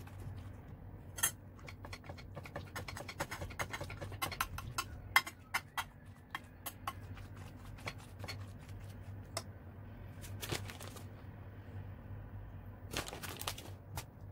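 Metal spoon scraping and clicking against a glass baking dish as saucy pasta is spread and pressed down, a rapid run of sharp clicks and scrapes. Two short rustling bursts come near the end, over a steady low hum.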